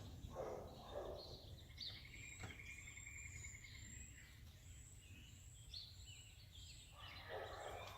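Quiet outdoor ambience with birds chirping and a short trill about two seconds in, over a faint low hum.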